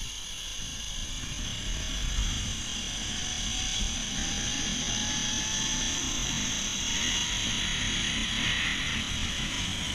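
Zipline trolley pulleys running along the steel cable, a whirring hiss with a faint whine that slowly rises in pitch as the rider gains speed. Wind rumble on the body-worn camera's microphone underneath.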